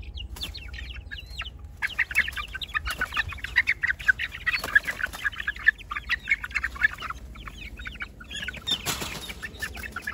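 A crowd of young chicks peeping, a rapid stream of short, falling high peeps that swells about two seconds in, while they are caught and lifted out of a pen by hand. A brief rustle of handling or wing-flapping comes near the end.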